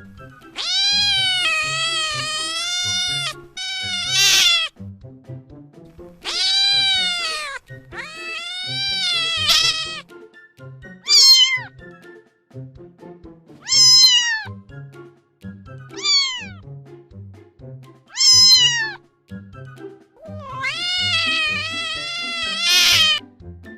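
Domestic cat meowing about nine times. The first meows and the last are long and drawn out, while those in the middle are short and fall in pitch. Soft background music plays underneath.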